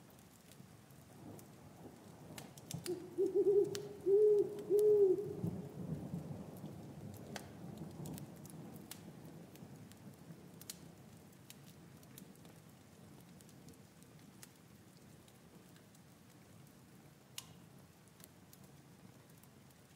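An owl hooting three times in quick succession about three seconds in, each hoot a short rising-and-falling note. Under it are a faint low rumble and scattered light ticks.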